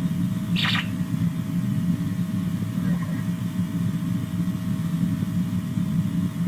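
Steady low rumble of a vehicle's engine and running noise, with a faint constant whine above it and a short burst of hiss about half a second in.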